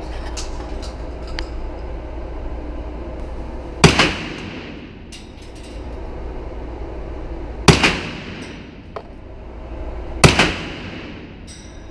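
Three single shots from a Colt AR 9mm carbine, a few seconds apart, each followed by a short echo off the walls of an indoor range. A few lighter clicks come in the first second and a half, over a steady low hum.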